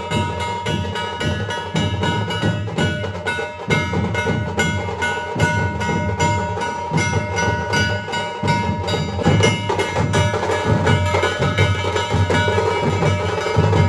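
Loud music over a DJ sound system, with fast, driving drum beats and heavy bass that keep up without a break.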